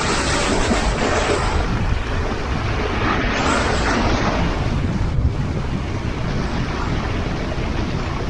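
Sea waves washing onto the shore, two surges of surf hissing in and drawing back, over a steady low rumble of wind on the microphone.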